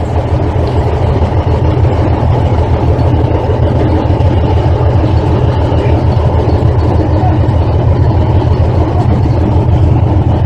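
Tank engine idling: a loud, steady low drone that holds unchanged throughout.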